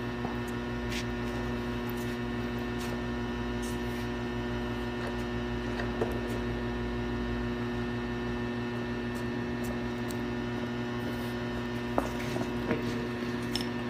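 Steady electrical hum made of several tones, with a couple of light knocks, one about six seconds in and one near the end.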